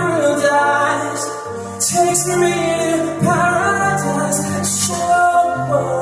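A male singer sings a pop song live into a microphone over a backing track with bass and drums, holding long, wavering notes without clear words.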